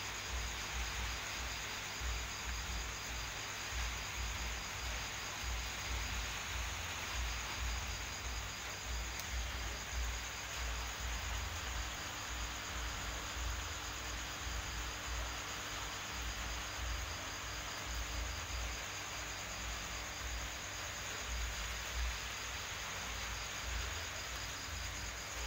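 A high insect trill with fast even pulses, pausing briefly about six seconds in, over a steady hiss and an uneven low rumble.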